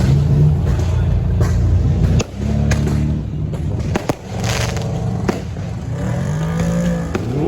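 Car engines running loudly and being revved, the pitch climbing near the end, with sharp cracks scattered through.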